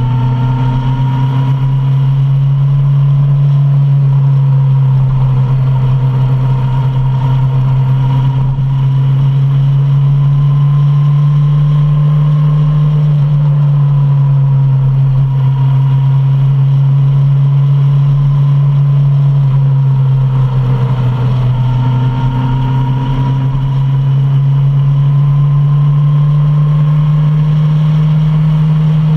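Suzuki Bandit 650's inline-four engine running while riding, loud and steady, its pitch drifting slowly up and down with the throttle.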